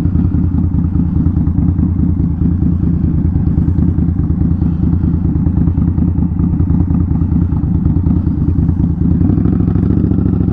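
A 2020 Indian Scout Bobber's 1133 cc V-twin engine running steadily, heard from on the bike. Near the end the engine note starts rising in pitch as the bike accelerates.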